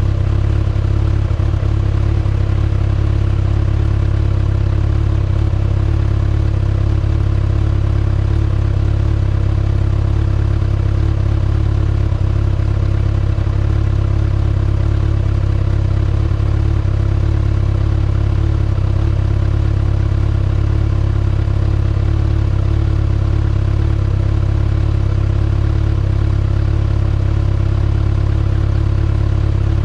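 2019 Kawasaki ZX-6R's inline-four engine running through its stock exhaust, held at a steady engine speed with no revving up or down.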